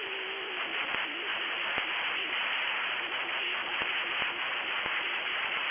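Steady static hiss from the broadcast receiver after the warning's voice message ends, with scattered faint clicks and a faint wavering tone underneath.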